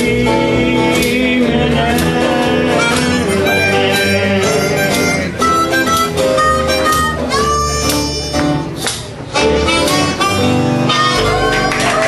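Harmonica playing a lead line over acoustic guitar and upright bass in a small live band.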